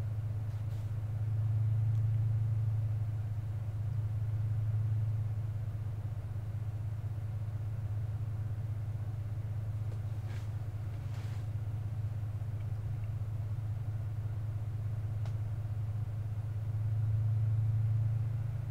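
Steady low machine hum that swells louder twice, with a few faint ticks.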